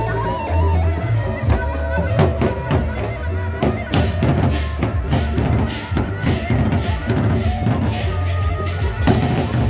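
Sasak gendang beleq ensemble playing in procession: large double-headed drums beat steadily under ringing gong tones, and the hand cymbals clash more densely from about halfway through.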